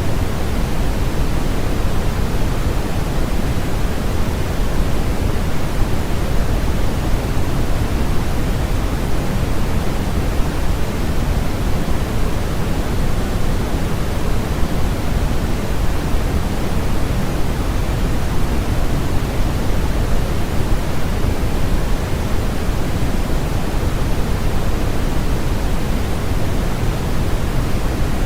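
Steady synthetic noise for sleep masking: an even, unbroken hiss, strongest in the bass and thinning toward the treble.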